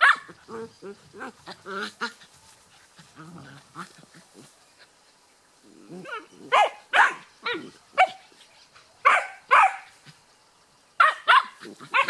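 Puppies squabbling: low, wavering growls in the first couple of seconds, then from about six seconds in a run of short, sharp, high-pitched yaps, often two in quick succession.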